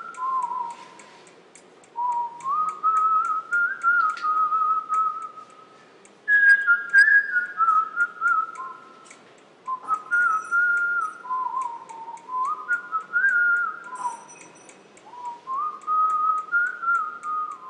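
A tune whistled in short melodic phrases of a few seconds each, with brief pauses between them, over a faint, even ticking of about three ticks a second.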